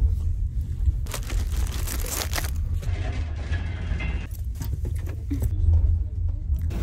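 Close rustling, scraping and knocks as a handheld phone and bedding are handled while someone climbs onto and settles on an upper sleeper-car berth, densest about one to two seconds in, over a steady low rumble of the passenger train carriage.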